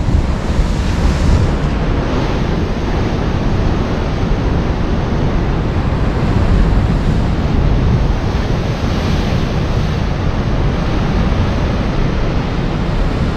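Rough sea: waves surging and breaking, with wind noise on the microphone.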